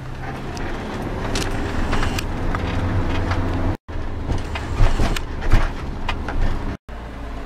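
Car engine and road noise heard from inside the cabin while driving: a steady low hum with scattered clicks and knocks. The sound cuts out for an instant twice.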